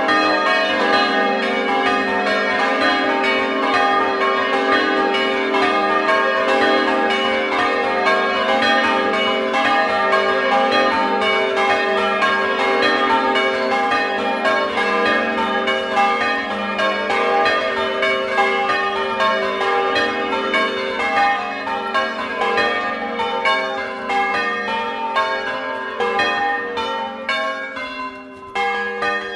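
Six tuned bronze church bells (Ab, Bb, C, Db, Eb, F; cast by Francesco De Poli, 1994) on a portable frame, swung by hand ropes and rung Bolognese-style in a doppio: a rapid, unbroken cascade of overlapping strokes at different pitches. The strokes thin out toward the end, with a brief dip near the end.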